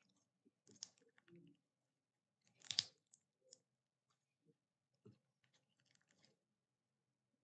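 Slime being squished and stretched by hand: faint, scattered sticky pops and crackles, the loudest a short squelch about three seconds in.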